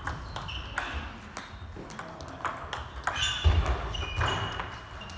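Table tennis balls clicking sharply off bats and bouncing on the table in quick, irregular succession during forehand multiball practice, with more ball clicks from other tables around the hall.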